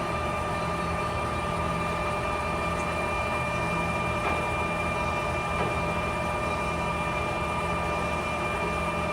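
Clausing Colchester 17" x 80" engine lathe running with the spindle at 207 rpm and the carriage on power feed: a steady hum with a steady high whine from the gearing.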